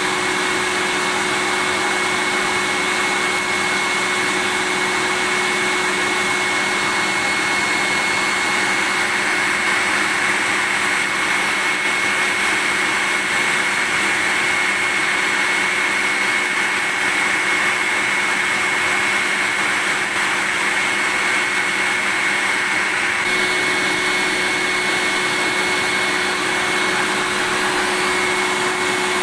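Vacuum cleaner running steadily: an even rush of air and motor noise with a thin, constant high whine. Its tone shifts slightly about three quarters of the way through.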